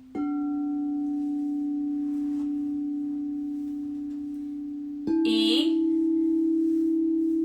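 Two crystal singing bowls struck in turn with a suede mallet: the D bowl rings with a steady, slowly fading tone, and about five seconds in the E bowl, a step higher, is struck and rings over it.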